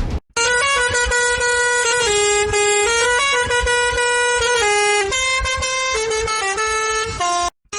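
A bus horn sounded as a tune, its pitch stepping from note to note about once a second, cut off abruptly near the end.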